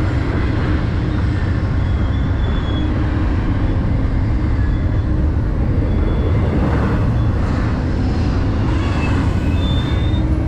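Steady low rumble of an Amtrak Superliner train standing at the platform, with a few faint, short high-pitched tones over it.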